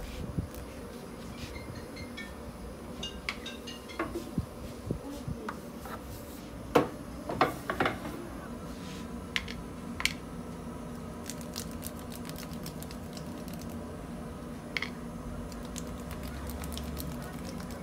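Metal baking trays clattering and knocking as they are handled and slid into a wooden rack, loudest about seven seconds in, over a steady low hum.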